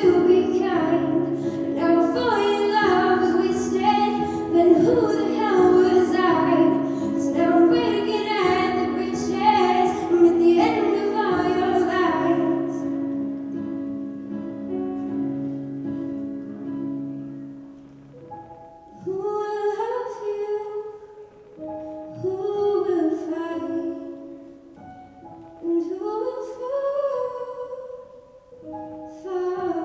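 A young female voice singing a song solo into a microphone, with instrumental accompaniment. The voice drops out about twelve seconds in while the accompaniment plays on alone, then comes back about six seconds later in shorter phrases.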